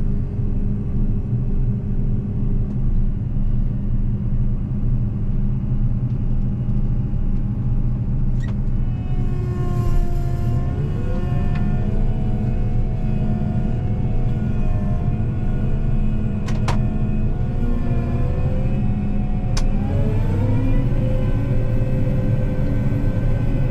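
A large farm machine's engine running, rising in pitch in two steps, about ten seconds in and again near twenty seconds, as it is throttled up. A few sharp clicks are heard.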